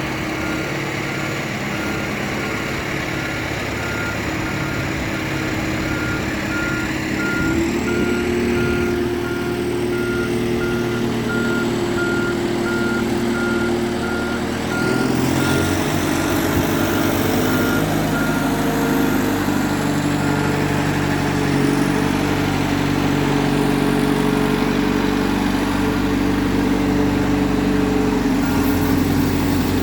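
Heavy vehicle's diesel-type engine running with its reversing alarm beeping in a steady, even rhythm. The engine revs up about halfway through, and the beeping stops about two-thirds of the way in while the engine keeps running.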